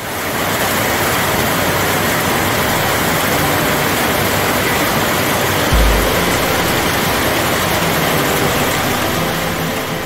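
Heavy rain pouring down, a steady dense hiss, with a brief low thump about six seconds in.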